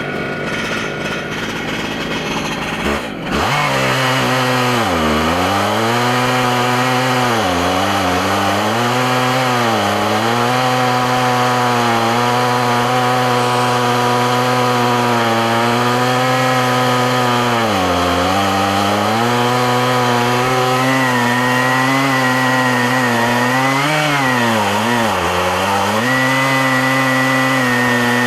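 Stihl MS880 two-stroke chainsaw running at full throttle while ripping lengthwise through an oak log on an Alaskan mill. The engine note dips several times as the cut loads it, then recovers. About three seconds in, the sound jumps suddenly louder.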